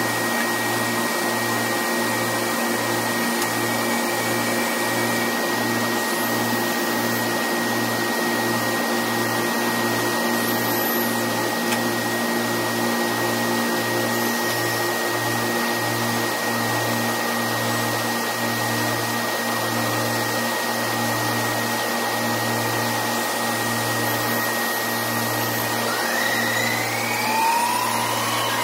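Drilling rig floor machinery running: a steady mechanical noise with a low throbbing pulse that slows from about two beats a second to about one, over a constant high tone. Near the end a rising whine comes in.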